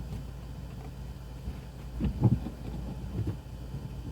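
Soft low knocks and handling noises, a cluster about two seconds in and a few more around three seconds, over a steady low hum.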